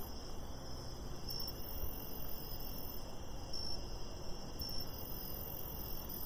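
Insects chirping: short high chirps every second or two over a steady background hiss and low rumble.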